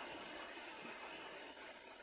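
Faint, steady wash of distant surf breaking on a shallow sandy beach.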